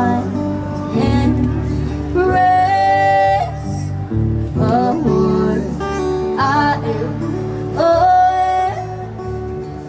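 Street performers singing a song to acoustic guitar, the sung melody carried over steady low accompaniment.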